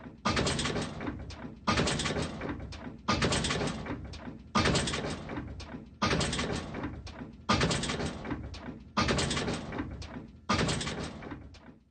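Cartoon sound effect of heavy footsteps: eight loud thuds at an even, slow pace, about one every second and a half, each with a long fading ring.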